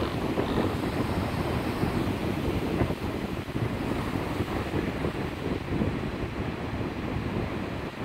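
Large ocean surf breaking continuously, a steady rushing noise, with wind buffeting the microphone.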